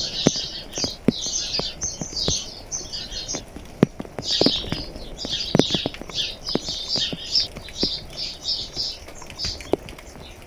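Small birds chirping and twittering in quick, dense bursts, with raindrops tapping in sharp, irregular knocks close to the microphone.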